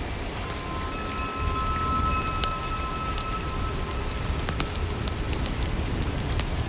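Steady rain falling, with scattered sharp drips and a few long, steady tones held over it.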